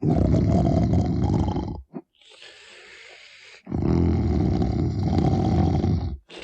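Brer Bear's snoring, a recorded voice performance for the Splash Mountain ride character: a long, loud, rumbling snore, a short quieter breathy exhale, then a second long rumbling snore.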